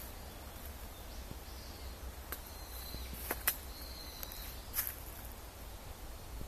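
Footsteps on dry leaf litter in woodland: a few scattered crunches and snaps over a steady low rumble, with a faint high thin tone in the middle.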